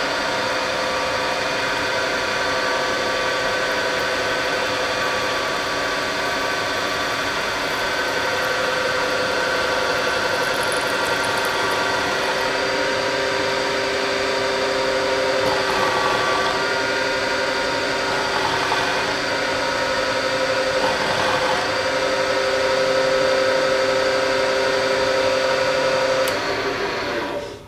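Bridgeport vertical milling machine running, its spindle turning a center-cutting end mill as it is plunged into an aluminum mold block: a steady machine hum with a held whine, shifting slightly in pitch now and then. The machine shuts off and the sound drops away near the end.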